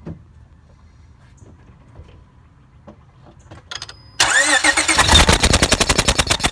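Car engine being cranked over by its starter motor, coming in suddenly about four seconds in and pulsing fast and evenly, as part of a spark check on the ignition coils and plugs of an engine with a misfire.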